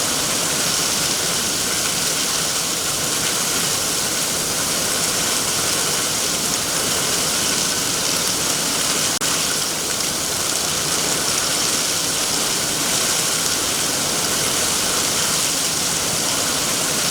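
Heavy rain falling steadily on trees, an even, unbroken patter.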